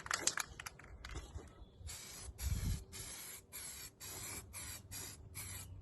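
Aerosol can of Hammerite black paint spraying in about eight short hissing bursts, each about half a second long, starting about two seconds in. The bursts are a first coat going onto a rust-treated steel heat shield.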